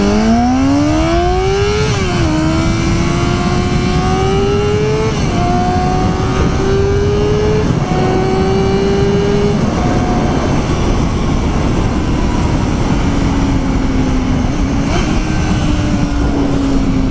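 Yamaha R6S inline-four sport-bike engine accelerating hard through the gears. The engine note climbs steeply and drops sharply at each of four upshifts, about two, five, seven and a half and nine and a half seconds in. It then settles into a steady cruise, easing slightly, under heavy wind noise.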